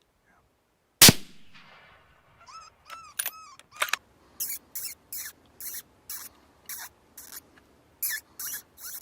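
A single loud rifle shot about a second in, followed by a coyote yelping and then crying in quick repeated high squeals, about two a second, typical of an animal hit but not killed.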